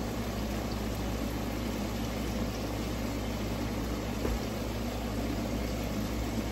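Steady low hum with an even hiss and no distinct events: kitchen background noise.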